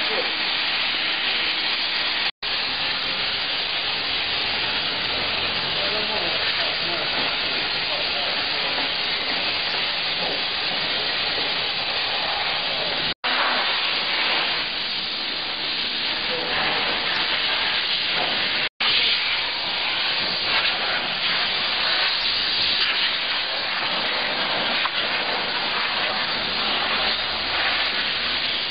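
Steady hiss of a steam cleaner gun spraying high-pressure steam, broken three times by brief silent gaps.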